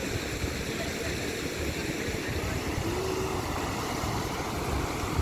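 A steady low rumble with no clear pitch, with a faint brief tone about three seconds in.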